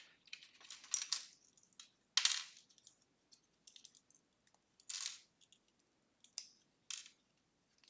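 Hard plastic LEGO pieces clicking and clattering as a small set is pulled apart and the parts are set down, in about half a dozen sharp clacks, the loudest about two seconds in.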